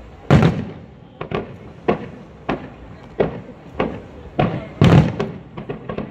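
Fireworks display: aerial shells bursting in a steady run of sharp bangs, about one every half second, each trailing off in a short echo. The loudest bangs come just after the start and about five seconds in.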